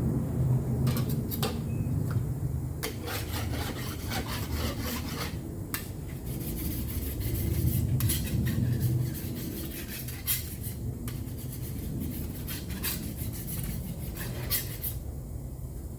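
Irregular scraping and rubbing on a hard surface, with sharp clicks, over a low steady rumble.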